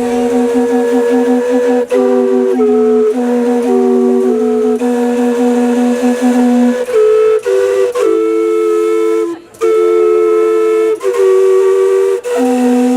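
Steam whistles sounding a tune, two or three notes at once, with the pitches stepping up and down every second or so like carousel music. A low held note sits under the tune for the first seven seconds and comes back near the end, and the sound breaks off briefly about nine seconds in.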